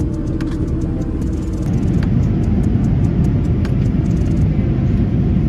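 Airliner cabin noise in flight: a steady low rumble of jet engines and rushing air that gets louder about two seconds in, with a few faint clicks.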